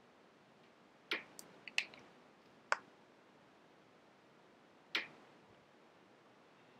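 Scattered short, sharp clicks over faint room hiss: a quick cluster of several about a second in, a single click just after, and one more about five seconds in.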